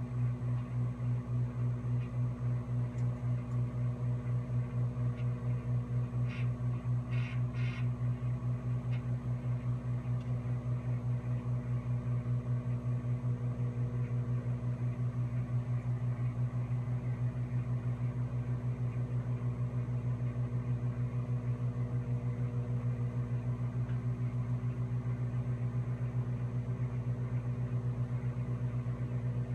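Microwave oven running while it cooks: a steady low mains-frequency hum with a fast, even pulsing, and a few brief crackles about six to eight seconds in.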